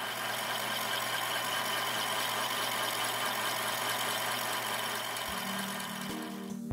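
Steady machining noise with a low hum from a thin slitting cutter spinning and cutting a slot into the rim of a steel part. Music comes in about five seconds in.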